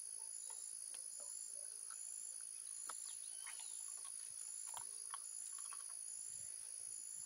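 Insects calling steadily in the background: one continuous high-pitched trill and a second high call pulsing a little faster than once a second, with a few faint clicks.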